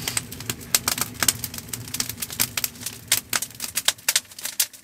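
Firewood crackling in a hot-tent wood stove: a run of sharp, irregular snaps and pops, over a low steady rumble that fades near the end.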